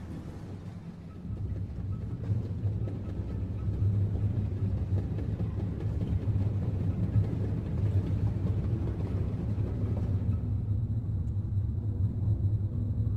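Steady low rumble of Gullfoss, a large waterfall, that grows louder about a second and a half in.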